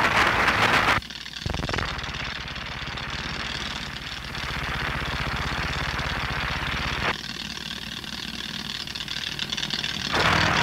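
A passage of a recorded music track built from abrupt cuts. A dense, loud hiss stops suddenly about a second in and gives way to a low, quickly pulsing rumble, which changes character about seven seconds in. The hiss cuts back in near the end.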